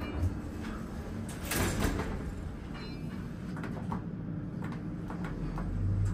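Otis elevator's sliding doors moving, a loud rush of noise about a second and a half in, over a steady low hum, with small clicks and a low thump near the end.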